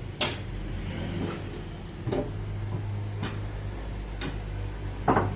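Sawmill machinery running with a steady low hum, broken by sharp knocks about once a second. The loudest knocks come at the start and near the end.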